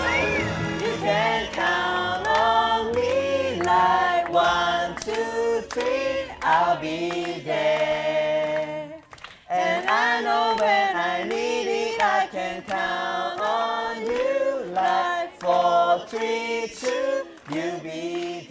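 A group of voices singing a song together in unison, with a brief pause about nine seconds in.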